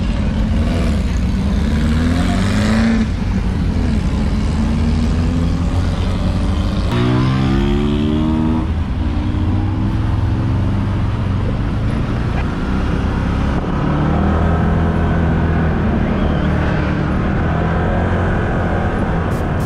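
Side-by-side UTV engine running while under way, its pitch rising and falling with the throttle, with a strong climb in revs about seven seconds in.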